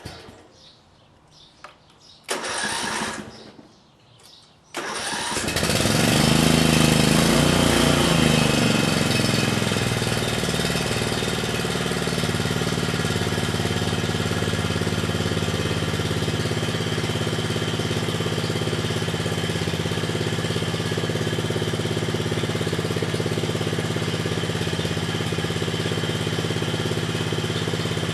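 Small gasoline yard-machine engine starting: a short burst of cranking about two seconds in, then the engine catches near five seconds in, revs up briefly and settles into a steady run.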